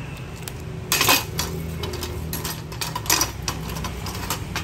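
Steel knives clinking and clattering as they are handled and set down. There is a sharp cluster of knocks about a second in and scattered lighter clicks later, over a steady low background rumble.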